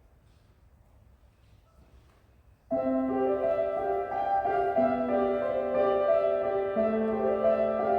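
Near silence, then a violin and piano ensemble starts playing suddenly about two and a half seconds in: held chords over a bass line that steps down every couple of seconds.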